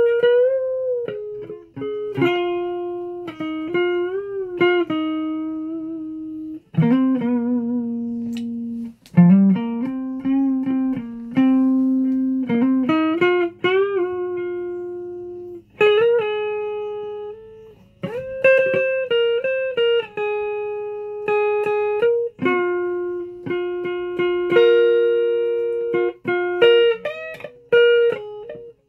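Plucked string instrument played one note at a time, in slow uneven phrases, with some notes sliding or wavering in pitch.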